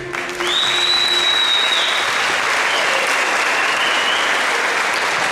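Large audience applauding, the clapping starting about half a second in as the last note of the choir's music dies away. Over the clapping a long, shrill whistle of approval, then a second, slightly lower whistle a couple of seconds later.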